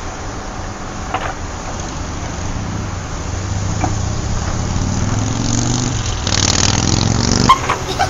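A motor vehicle's engine on the street, growing louder and rising in pitch as it accelerates past, then cutting off abruptly near the end, over a steady low traffic rumble.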